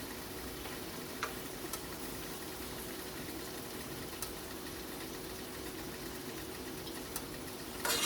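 Hot cooking oil sizzling in a frying pan, with a few faint pops and crackles, and a brief louder burst near the end.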